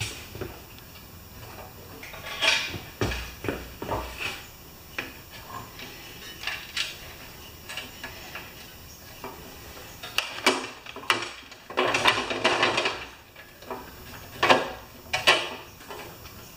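Scattered metal clinks and knocks from a wrench and loose parts while the last nut holding a pressure washer pump is taken off and the machine's frame is handled, with a longer stretch of clatter about twelve seconds in.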